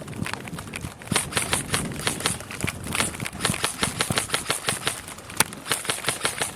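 Airsoft guns firing rapid shots, about four a second, amid scattered sharp snaps and clicks.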